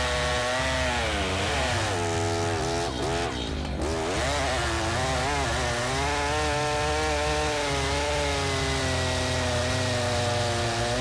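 Stihl MS 881, a large two-stroke chainsaw, running at high revs while cutting wood. Its pitch sags and recovers several times in the first few seconds as the chain bogs under load in the cut, then holds nearly steady.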